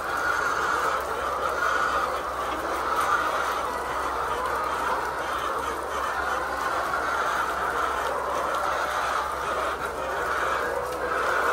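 A flock of layer chickens calling continuously, a dense chorus of many overlapping clucks and calls with no single bird standing out.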